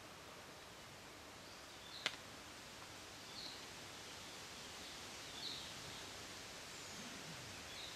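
Steady faint background hiss with a few short, high chirps of a small bird spaced a couple of seconds apart, and one sharp click about two seconds in.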